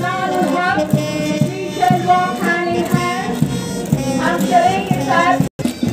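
Parade march music: a wavering melody over a steady drum beat of about two beats a second. The sound cuts out for an instant near the end.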